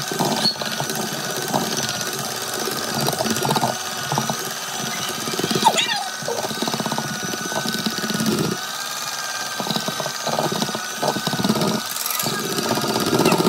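Handheld electric mixer running steadily with a constant motor whine, its beaters churning cupcake batter in a bowl with uneven rattling.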